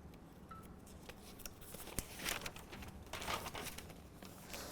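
Faint rustling with a few light clicks, one sharper click about two seconds in, over quiet room tone.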